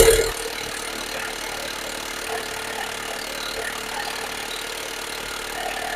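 A power tool on a wheel's lug nuts stops right at the start, leaving a steady machine hum with a faint even tone and light shop noises.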